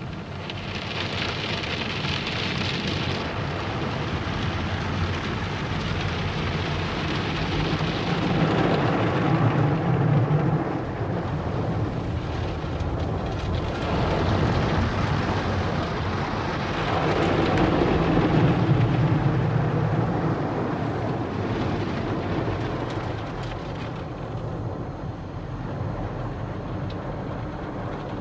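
Automatic tunnel car wash heard from inside the car: water spray and suds pelting the windshield and body, with a low rumble underneath. The noise swells louder twice, about a third of the way in and again past halfway.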